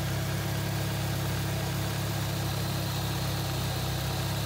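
Engine idling steadily while a turbocharger's compressor wheel spins behind its open inlet.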